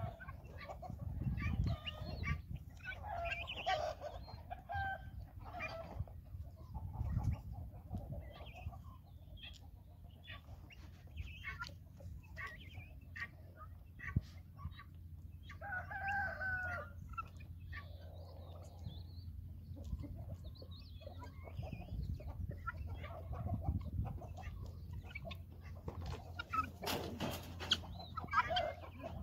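Guinea fowl and other farmyard fowl giving scattered short calls and clucks while feeding, with one longer pitched call about sixteen seconds in. Many sharp little clicks of beaks pecking grain from a plastic-pipe trough run under the calls.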